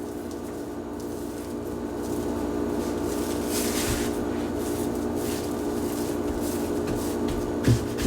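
Bread dough being rolled up into a tube by hand on a floured work surface, soft rubbing and squishing sounds over a steady low hum, with a few light knocks near the end.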